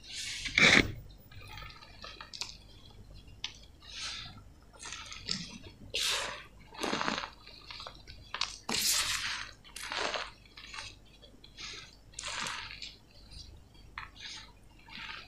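Hands squeezing and crumbling reformed gym chalk and letting the powder sift through the fingers: a string of soft, separate crunches and powdery pours, about one a second, the sharpest crunch just under a second in.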